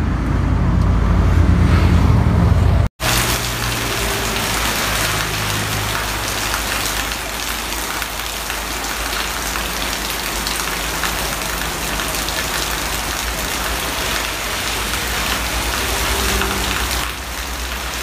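Heavy rain pouring steadily on a road, an even hiss, with vehicle engines running faintly beneath it. Before it, for about three seconds, a low rumble, cut off abruptly.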